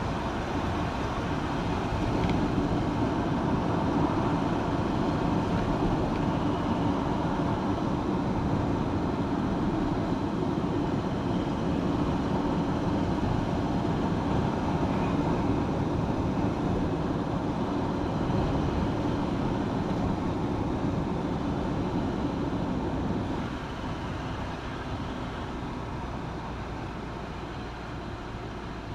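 Steady rumble of a car driving along a road: tyre and engine noise. It drops noticeably in level near the end.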